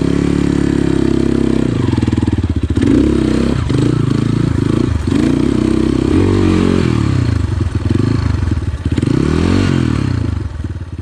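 GPX FSE 250 dirt bike's single-cylinder four-stroke engine running under way, its pitch rising and falling as the throttle is opened and closed.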